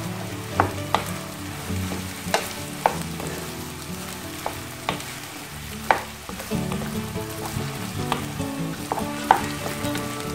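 A wooden spatula stirs and turns egg-coated rice in a ceramic frying pan over a low flame, with a steady low sizzle. The spatula knocks sharply against the pan at irregular moments, about a dozen times.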